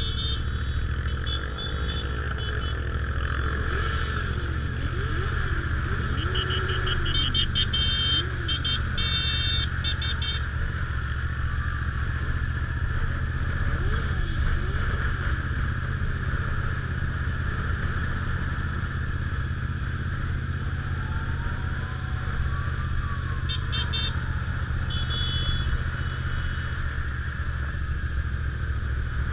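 Motorcycle engine running steadily at a slow riding pace, heard from on the bike with wind noise on the microphone. Other engines nearby rise and fall in pitch a few times, and a few brief high chirps come and go.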